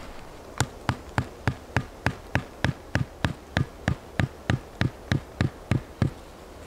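A small wooden stake being hammered into the ground with the back of a hatchet: about twenty even blows, roughly three a second, starting about half a second in.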